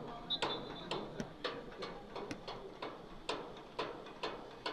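Footballs being kicked again and again on a training pitch: sharp knocks at an uneven pace of about two a second.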